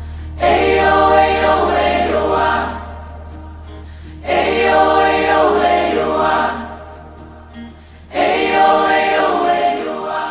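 Choir singing a worship song as backing music, in three phrases over a steady low drone.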